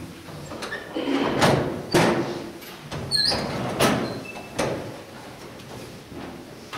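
A congregation kneeling in wooden church pews: the kneelers are let down with several sharp knocks and thuds, the loudest two in the first two seconds, with a short squeak about three seconds in and shuffling between.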